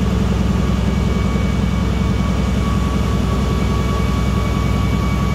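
Steady hum of running industrial machinery: a deep drone with a few constant high whining tones above it, unchanging throughout.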